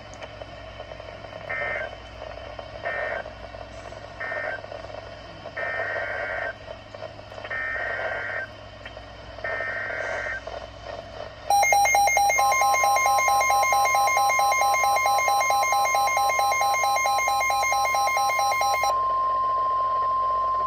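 Emergency Alert System data bursts on NOAA Weather Radio: three short screeching bursts, then three longer ones, marking the end of one warning and the header of the next. A loud buzzing alarm follows, with the steady 1050 Hz weather-radio warning tone sounding under and after it.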